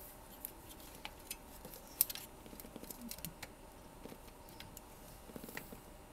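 Scattered small clicks and light rattles of a monitor's power supply circuit board being pushed and wiggled by hand against its sheet-metal chassis, the board stuck in place; the sharpest click comes about two seconds in.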